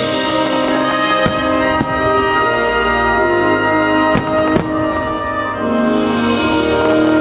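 Orchestral music with held notes plays under a fireworks display, with shells bursting in several sharp bangs, the two loudest about four seconds in.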